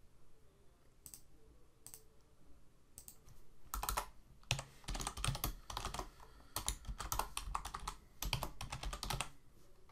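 Typing on a computer keyboard: two single clicks about one and two seconds in, then a run of quick keystrokes from about three seconds in that stops shortly before the end.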